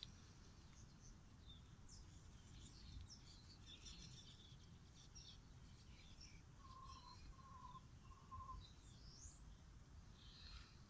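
Near silence: faint outdoor garden ambience with distant birds chirping here and there over a low background rumble, and three short, even notes a little past halfway through.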